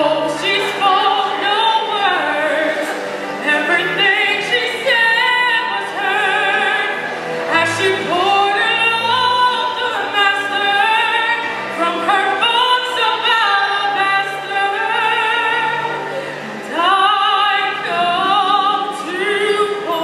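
A young woman singing a gospel song solo into a microphone, amplified through a PA, in long held phrases with a wide vibrato on the sustained notes.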